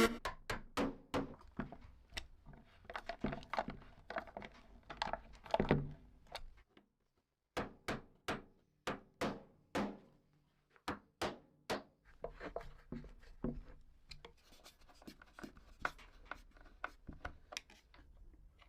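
Irregular series of light knocks, taps and clicks from hand work on the tool being restored, with a short pause a little past a third of the way in.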